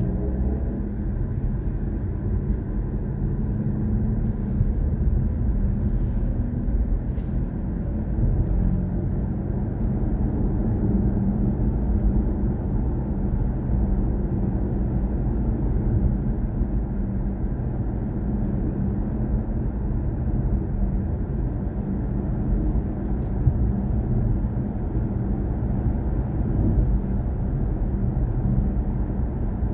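Steady tyre and road rumble from a BMW i4 M50 electric car driving at moderate speed, heard from inside the cabin, with no engine note. A few faint brief hisses come in the first several seconds.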